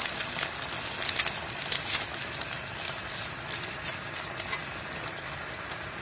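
Squid adobo simmering in its soy-and-vinegar sauce in a stainless pot, a steady crackling sizzle with many small pops, livelier in the first couple of seconds and settling a little after.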